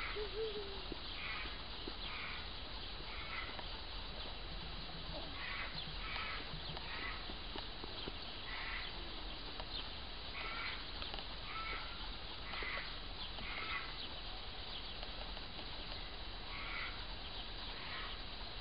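Crows cawing, short harsh calls in twos and threes repeated every few seconds, over a steady outdoor hiss.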